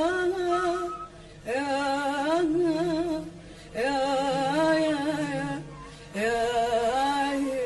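A woman singing an Arabic song with an ornamented, wavering melody and vibrato, in sung phrases broken by three short pauses for breath.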